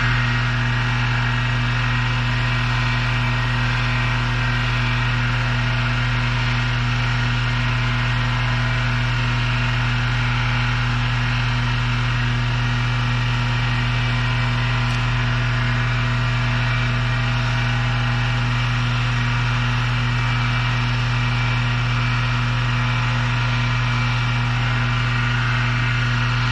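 Battery-powered tool motor running at one steady speed with a constant hum, driving a chainlink saw chain while a cloth is held against it for polishing.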